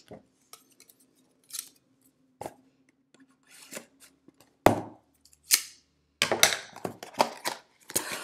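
Large scissors snipping open a cardboard toy box: scattered small clicks at first, then sharper snips about halfway through and a quick run of cuts near the end.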